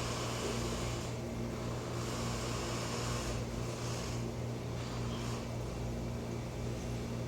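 A steady low machine hum with a hiss over it that swells and fades every second or two.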